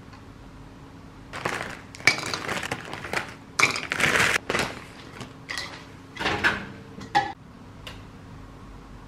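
Plastic freezer bag of frozen broccoli crinkling in a series of short rustles while florets are taken out, with a couple of light knocks of tableware.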